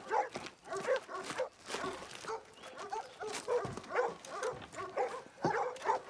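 Hunting dogs barking and yelping, many short calls in quick succession, some overlapping.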